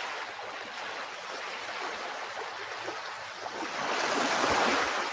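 Stage sound effect of wind blowing at a window: a steady rushing noise that swells louder near the end.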